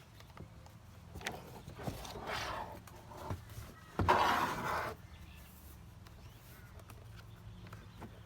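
Clicks and rubbing of plastic trim and rubber gasket being unclipped and pulled from a Mercedes W211 headlight housing. A louder scraping rustle comes about four seconds in and lasts nearly a second.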